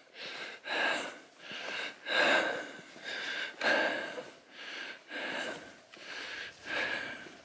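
A hill walker breathing hard close to the microphone, a rhythmic run of hissing breaths in and out, out of breath from the steep climb.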